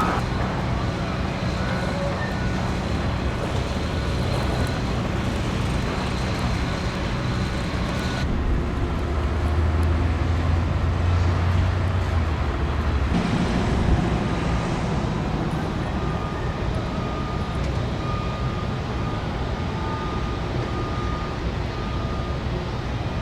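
Steady road-traffic and vehicle engine noise, with a heavier low rumble passing through the middle and a faint repeated beeping in the second half.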